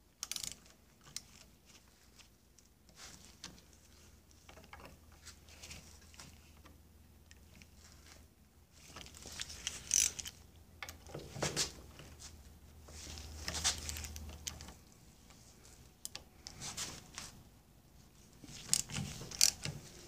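Faint clicks and scrapes of a hand tool turning and testing the screws on an outboard gearcase, with several sharper metal clicks in the middle. A low hum runs under them and cuts off about three-quarters of the way through.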